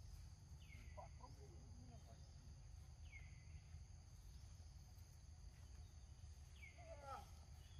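Faint outdoor ambience: a steady high insect drone over a low rumble, with three short falling chirps about three seconds apart and a fainter lower falling call near the end.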